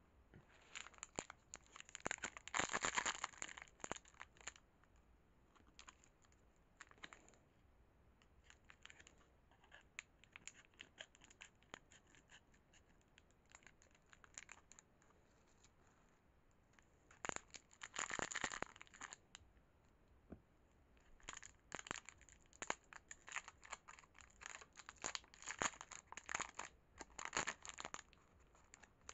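Crinkly plastic lollipop wrapper being handled and torn open by hand, in crackling bursts: a longer burst about two seconds in, another around eighteen seconds, and a run of quick crackles over the last eight seconds.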